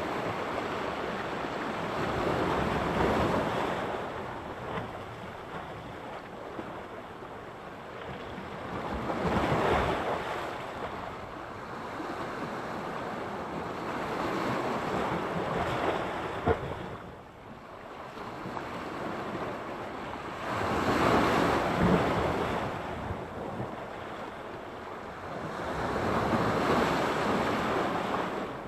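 Sea surf on the shore: waves breaking and washing in, the hiss swelling and fading about every five to six seconds.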